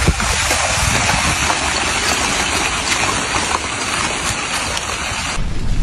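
Lava flow advancing over snow, giving a loud, steady hiss with faint crackling throughout. The hiss cuts off suddenly about five seconds in, leaving a low rumble.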